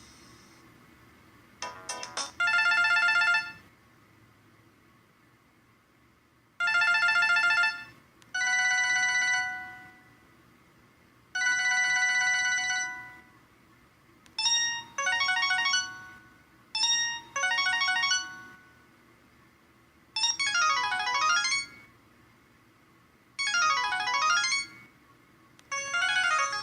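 LG Fusic mobile phone ringtone playing: short electronic melodic phrases of one to two seconds each, with brief pauses between them. Near the end come two fast sweeping arpeggios, each running down and back up.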